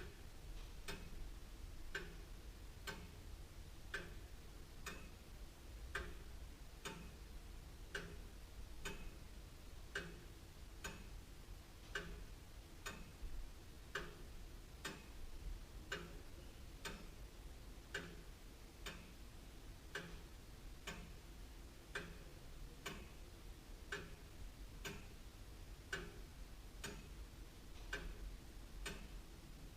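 Antique William Holliwell of Liverpool clock ticking steadily, an even, regular tick-tock from its escapement.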